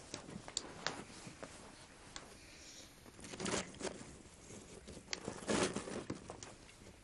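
Faint handling sounds: a few sharp clicks and taps in the first second and a half, then two short bursts of scraping and rustling as things are moved about on the floor by a clay pot.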